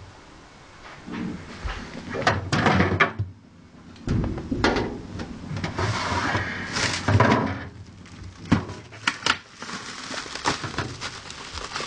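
Refrigerator and plastic bucket being handled: several sharp knocks and clunks, with stretches of plastic-bag rustling as the bucket's cover is pulled back.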